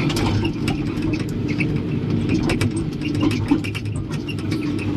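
Excavator's diesel engine running steadily, heard from inside the cab, with scattered light clicks and knocks over it as the boom and bucket move.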